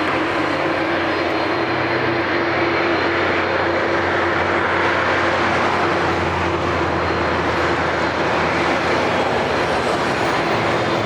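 Airbus A330-200's jet engines running, a steady, even rushing noise with a constant droning tone and a low hum beneath it.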